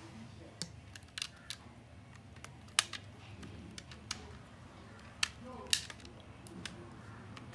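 A run of sharp, irregular clicks and snaps, about nine of them, the loudest nearly three seconds in and again near six seconds, from a phone and small tools being handled on a workbench during reassembly.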